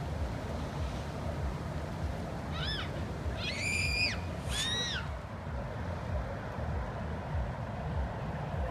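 Wind rumbling on the microphone, with three short high-pitched cries, each rising then falling, about three to five seconds in.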